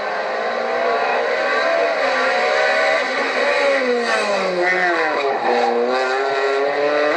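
Honda Civic rally car's engine revving hard through corners, its pitch rising and falling with throttle and gear changes. The pitch drops about five seconds in, then climbs again as it accelerates.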